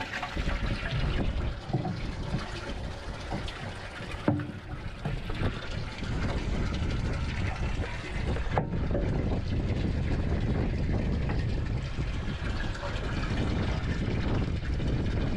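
Boat engine running steadily under the sound of rushing, splashing water, with a single sharp knock about four seconds in.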